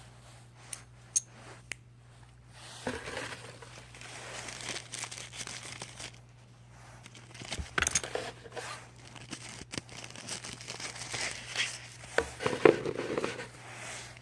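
Packaging being handled: wrapping crinkling and tearing in several bouts, with a few sharp clicks in the first two seconds.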